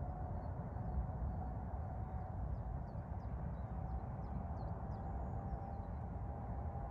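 Steady outdoor background of a pasture: a low rumble with a faint steady hum, and faint short bird chirps scattered through it.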